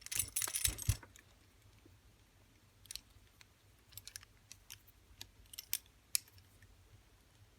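Small metallic clicks and rattles from Darby handcuffs as their screw-type key is turned on the lock's threaded bar. A quick cluster of rattling comes in the first second, then light scattered clicks.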